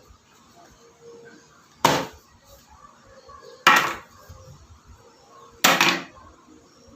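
Three sharp knocks, about two seconds apart, each dying away over about half a second.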